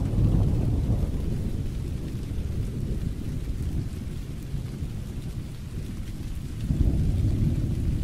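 Thunderstorm: low rumbling thunder dying away over the first few seconds, then a fresh roll of thunder building near the end, over steady rain.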